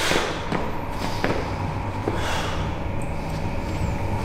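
A 90 kg barbell is lifted off a bench-press rack and lowered, giving three light knocks and clanks of bar and plates over a steady low hum.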